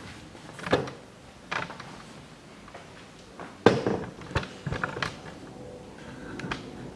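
A handful of scattered knocks and clicks, like things being handled, with the loudest a little past halfway.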